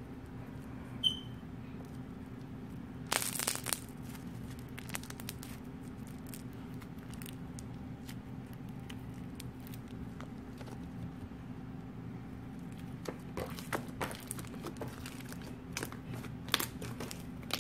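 Clear slime being squeezed and stretched by hand, giving scattered sticky crackles and pops, with a cluster about three seconds in and more toward the end. A short high squeak sounds about a second in, over a steady low hum.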